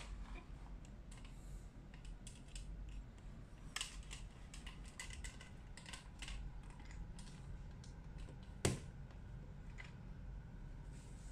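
Faint, irregular light clicks and taps over a low steady hum, with one sharper, louder click about two-thirds of the way through.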